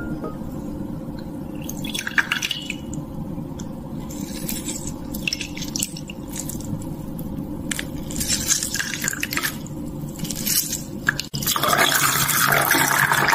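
An orange half being squeezed by hand over a glass: the fruit squelches and juice drips and splashes into the glass, in short irregular spurts. A little before the end this gives way to a steady stream of water being poured from a bottle into the glass.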